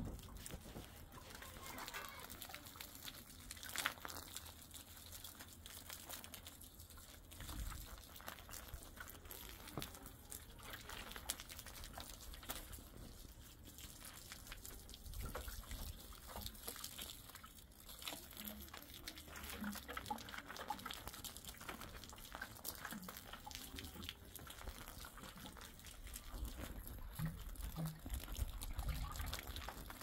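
Faint household handling sounds: water poured from a plastic kettle and jugs, plastic containers knocked and set down, and a few footsteps on dirt near the end. Low gusts of wind rumble on the microphone now and then, most strongly toward the end.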